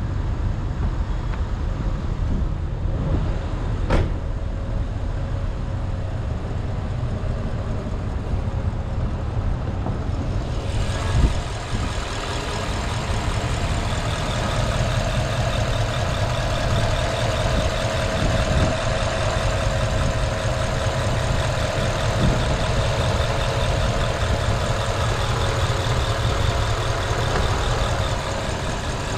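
2009 Porsche Panamera Turbo's 4.8-litre V8 running, with steady engine and road noise. A thump comes about eleven seconds in, after which the noise turns brighter and fuller.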